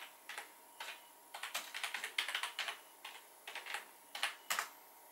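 Typing on a computer keyboard: scattered keystrokes, a quick run of them in the middle, and a last sharp keystroke near the end.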